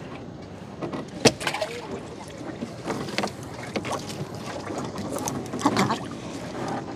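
Irregular knocks, thuds and rustling in a small boat as a gill net is hauled aboard and fish are picked from it. One sharp knock comes about a second in.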